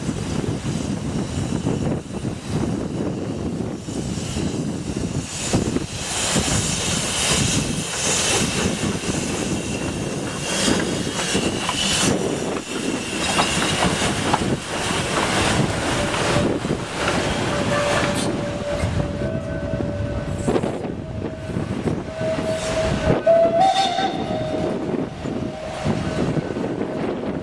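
Furka Mountain Railway HG 3/4 narrow-gauge steam locomotive hauling its carriages past: steady rumble and knocking of exhaust and running gear. Through the second half a long steady whistle-like tone runs under it, stepping up in pitch briefly near the end.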